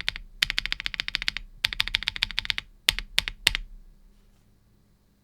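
Typing on a mechanical keyboard with Akko CS Air linear switches: a couple of fast runs of clacking keystrokes, then three single keystrokes about three seconds in.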